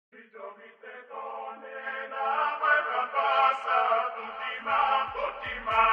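Intro music: chant-like singing over a steady held drone, with a low beat coming in near the end.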